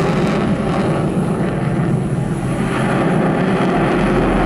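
Dassault Rafale fighter jet in flight, its two Snecma M88 turbofans giving a steady, loud jet roar. Near the end a low steady hum comes in under it.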